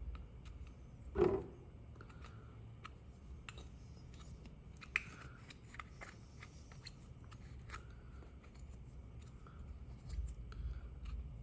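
Scattered small clicks and scrapes of small hard objects being handled, with one louder knock about a second in.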